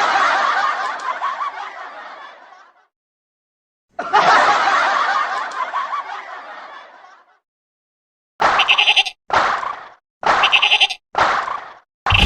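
A funny laughing sound effect plays twice, each about three seconds long and trailing off. Near the end come four short sheep bleats, about a second apart.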